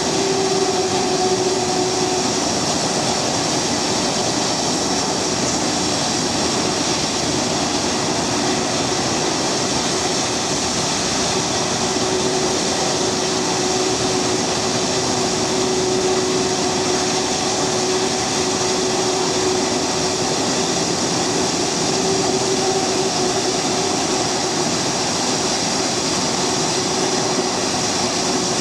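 Boeing 757-200's turbofan engines running steadily at idle: a continuous jet roar with a high whine and a lower hum running through it.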